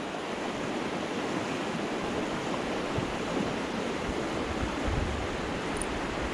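Creek water rushing steadily, an even hiss with no change.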